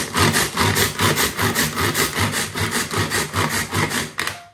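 Onions being chopped in a small food chopper: a rapid, regular grinding and chopping rhythm of about four strokes a second that stops about four seconds in.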